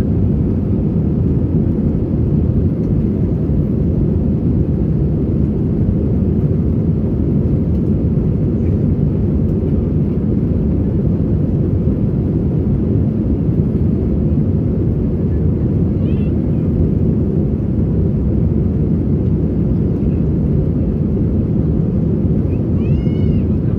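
Steady low cabin noise inside an Airbus A320 climbing out after take-off: engine and airflow noise at an even level.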